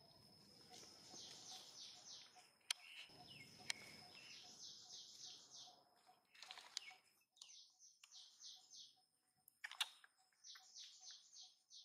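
A bird singing faintly: repeated phrases of about six quick, falling notes, one phrase every three seconds or so, with a few sharp clicks between them.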